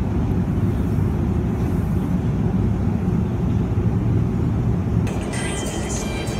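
Steady low mechanical rumble of a running escalator. From about five seconds in, thin high tones join it.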